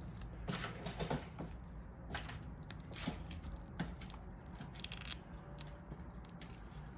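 Protective plastic film being peeled off the new tool cabinet, crackling and tearing in short irregular pulls.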